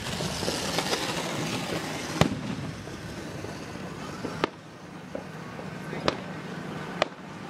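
Aerial firework shells bursting: about five sharp bangs, one every second or two, the loudest about two seconds in.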